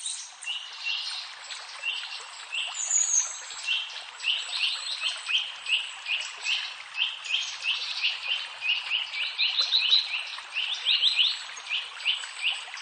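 Birds chirping: many short, quick chirps, a few each second, over a steady background hiss.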